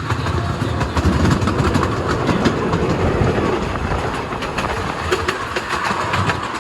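Zoo passenger train running at speed, heard from on board: a steady rumble of the coaches with the wheels clattering over the rail joints.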